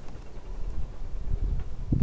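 Wind buffeting a head-mounted camera microphone as a steady low rumble, with faint rustling and light knocks from gloved hands and a rope working against the branches.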